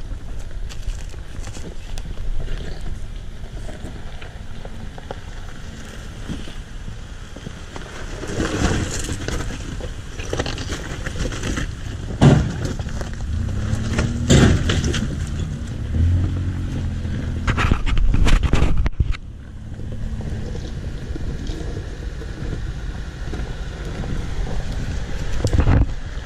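Pickup trucks crawling slowly over a rocky, gravelly trail, engines running at low speed with tyres crunching and grinding on stones. The loudest part comes about halfway through, as a Chevrolet Colorado ZR2 passes close: sharp rock crunches and an engine note that rises and falls. A second pickup draws near at the end.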